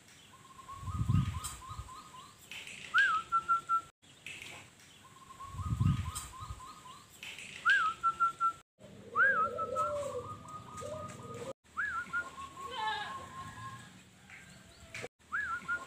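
Zebra dove (perkutut) singing: repeated phrases of a quick run of stuttering cooing notes that end in a rising, whistled coo, one phrase every four or five seconds. Two low thumps come about a second and six seconds in.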